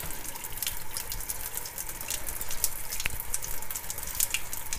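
Kitchen tap running in a steady stream into a sink, with many small wet clicks and splashes throughout.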